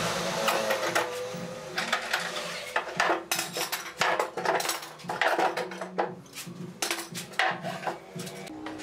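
Steel pipe clamps being released and lifted off a glued wooden frame: irregular metallic clanks and clicks of the pipes and clamp jaws against each other and the workbench.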